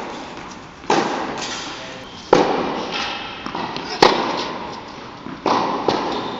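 Tennis balls struck by rackets during a baseline rally on an indoor court: four sharp hits about a second and a half apart, alternating between the two ends. Each hit rings on in the echo of the large hall, with fainter ball bounces between them.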